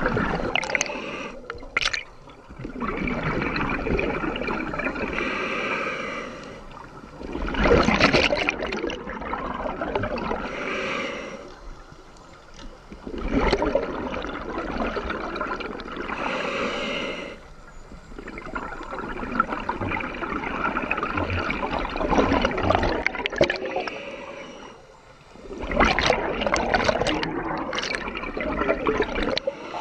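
Scuba diver breathing through an Aqualung Titan regulator underwater: repeated breath cycles of hissing airflow and bubbling exhalation, about one breath every five seconds.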